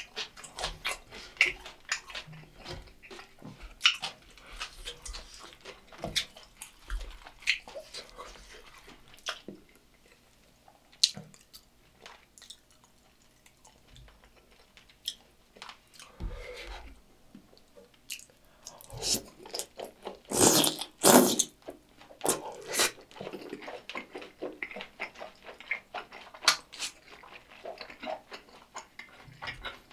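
Close-up eating sounds: chewing and biting sauced, batter-fried sweet and sour pork (tangsuyuk), with wet mouth sounds and small clicks of wooden chopsticks and plastic containers. The loudest bites come about two-thirds of the way through.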